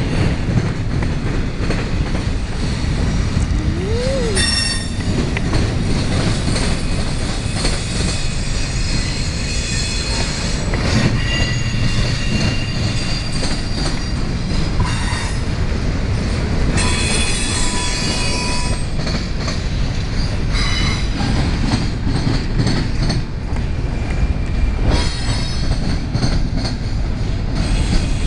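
Double-stack intermodal freight train of container well cars rolling past close by: a steady heavy rumble of steel wheels on the rails, broken several times by short spells of high-pitched wheel squeal.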